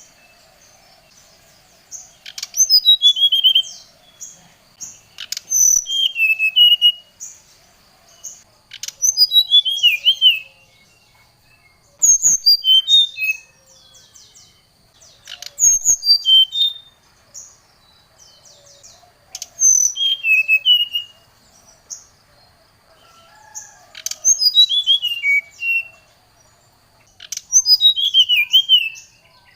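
Brown-chested jungle flycatcher (SRDC) song: eight short phrases of quick notes, each stepping down from high to lower pitch, repeating every three to four seconds. A few sharp clicks fall between the phrases.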